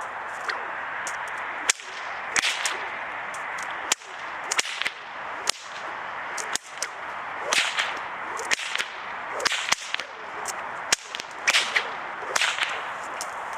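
A whip is swung in circles and cracked over and over in a Tasmanian cutback, giving a string of sharp cracks about one a second, some in quick pairs, each with a swish.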